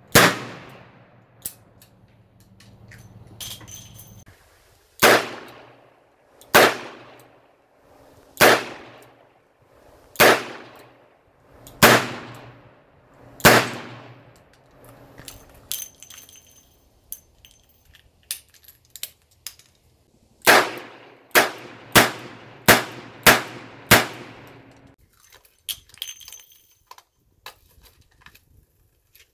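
Smith & Wesson Model 19 revolver firing: shots spaced about one and a half to two seconds apart, then a fast string of about six shots a little past halfway, each with a short ringing tail. Near the end, faint metallic clicks as the cylinder is swung open and the gun is handled for reloading.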